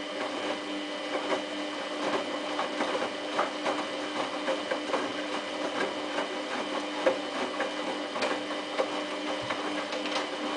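Samsung WF8804RPA front-loading washing machine tumbling its drum at a steady speed during the wash: a steady motor whine with many small clicks and knocks from the tumbling load.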